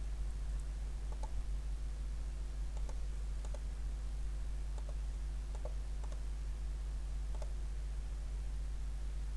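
Computer mouse clicking: about a dozen faint, irregularly spaced clicks over a steady low electrical hum.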